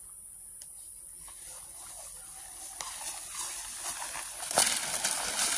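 Tall grass swishing and crunching as a dead boar is dragged through it by a leg, with footsteps; the rustle builds and grows louder, with a couple of sharper crunches near the end.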